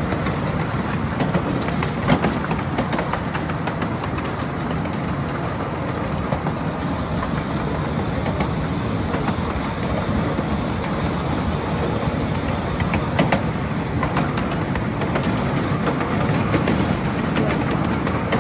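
Wheels of a small ride-on railway car rolling along the track: a steady rumble with scattered clicks and clacks.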